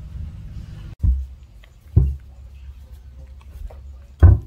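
Three short, dull thumps, about a second in, about two seconds in and near the end, the last the loudest. Faint soft clicks fall between them, over a low steady hum.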